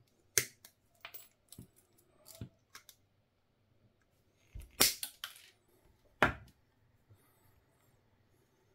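Scattered sharp clicks and knocks of small hard objects being handled, the loudest about half a second in, around five seconds in and just after six seconds.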